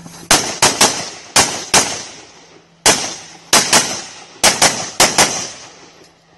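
An AR-15-style rifle firing rapid single shots, about a dozen cracks, mostly in quick pairs, each with a short echoing tail.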